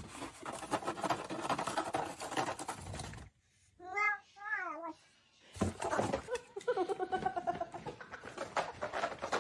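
A cat meowing twice in short rising-and-falling calls about four seconds in, between stretches of dense crackling and rustling.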